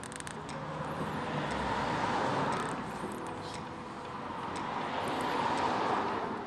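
Two vehicles passing on the road, each a rising and fading swell of tyre and engine noise, the second about three seconds after the first.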